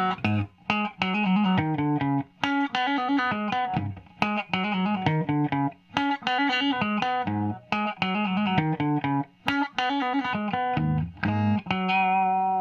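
Electric guitar with P90 pickups, played through a Caline Hot Mushroom compressor pedal and a solid-state amp: a riff of plucked single notes and chords in short phrases with brief gaps, and a chord left ringing near the end. The compression and slight drive give the notes long sustain and a little grit.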